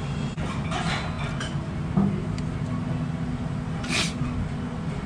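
Steady low rumble of room noise, with light clicks of chopsticks and a ramen spoon against the bowl, the sharpest about four seconds in.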